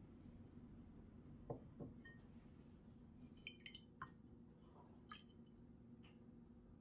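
Near silence: faint room tone with a few light taps and clinks scattered through it, from a wooden spoon against a glass container of soy sauce seasoning.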